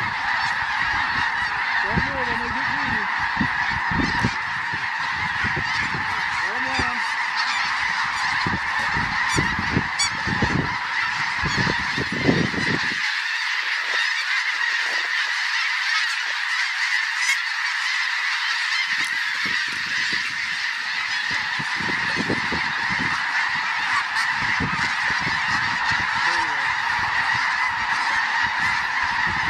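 Massed snow geese calling without a break, a dense clamor of overlapping high-pitched honks, with wind buffeting the microphone off and on.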